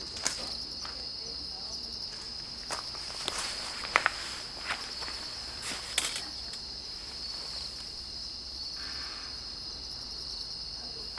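Crickets trilling steadily in a continuous high chorus, with a few sharp clicks and knocks, the loudest about four and six seconds in.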